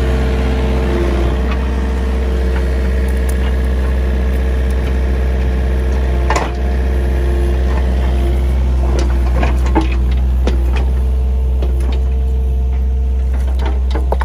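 Mini excavator's diesel engine running steadily, heard from the operator's seat, with occasional clunks of riprap rock as the bucket and thumb move stones: a sharp one about six seconds in and several more around ten seconds.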